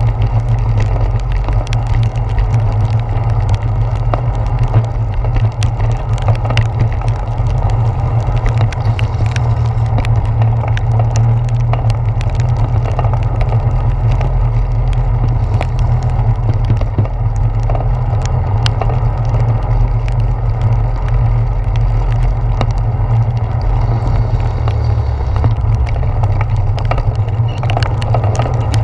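Bicycle riding through heavy rain, heard through a handlebar-mounted GoPro's waterproof housing: a steady low rumble of the ride, with many sharp ticks of raindrops striking the housing.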